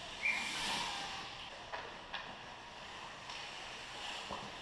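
Ice hockey skates hissing as they scrape and carve across the ice, loudest about a quarter second in, with a few sharp clacks of sticks and puck.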